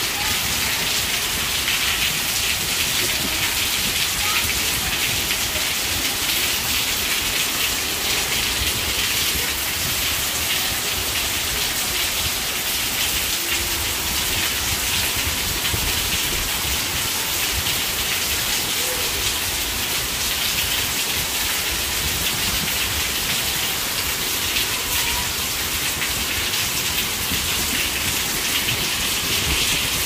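Rain falling steadily: a continuous, even hiss with a low rumble underneath.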